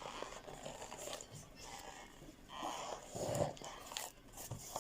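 Rustling and handling of a cardboard package as it is being opened, with a few small clicks and louder scraping about two and a half to three and a half seconds in.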